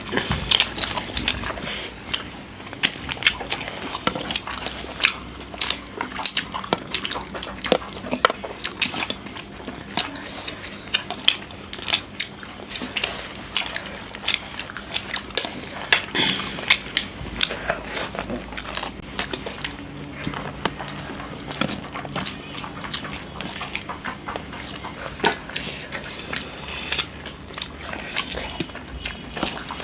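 Close eating sounds of chicken curry and pulao: chewing, biting and lip smacks, a dense irregular run of short clicks.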